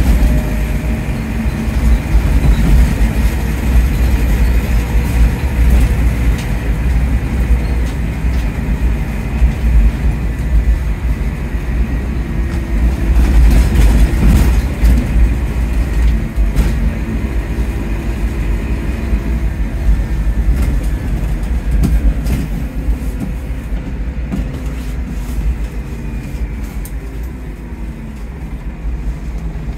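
Scania K230UB OmniLink bus heard from inside the cabin: its five-cylinder 9-litre diesel and ZF Ecomat automatic gearbox running under way, a deep rumble with pitched drivetrain whine that rises and falls through the gears. Scattered knocks and rattles from the body, and the noise eases toward the end as the bus slows.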